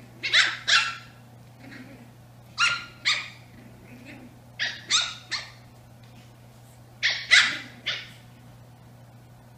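Brussels Griffon puppies play-fighting, letting out high-pitched yips and barks in four quick clusters of two or three.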